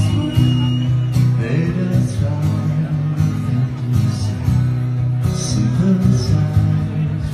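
A live band playing loud amplified music, with electric guitar over heavy bass and drums.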